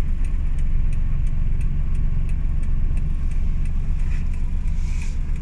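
Car engine and road rumble heard from inside the cabin while driving, with faint regular ticking.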